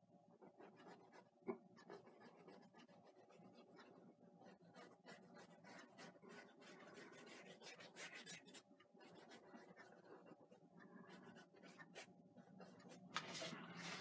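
Faint scratching of a paintbrush scrubbing oil paint onto a canvas in many quick, short strokes, with a single knock about a second and a half in. Near the end the rubbing gets louder, with a knock, as the canvas is shifted on the easel.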